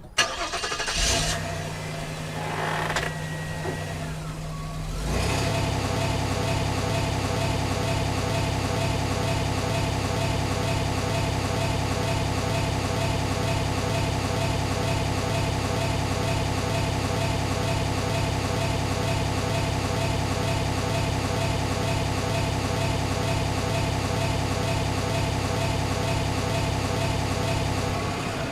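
Antique car engine. After about five seconds of uneven noises it settles into a steady, evenly pulsing idle.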